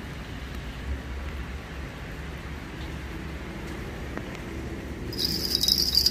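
Steady low hum and hiss, then about five seconds in a row of small metal bells on chains hanging from a steel truck body jingles as it swings.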